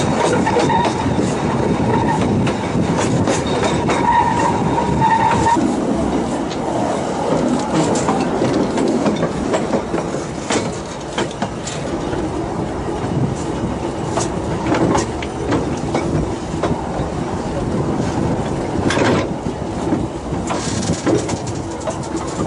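Two-foot narrow-gauge train carriage running on the rails, heard from on board: a steady rumble of wheels with scattered clicks of the rail joints. A high wheel squeal comes and goes for the first five seconds or so, then the running goes a little quieter as the train draws into a station.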